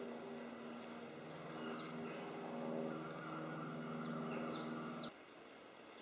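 A steady low mechanical hum, with high, thin bird chirps in two short clusters over it. The hum cuts off suddenly about five seconds in.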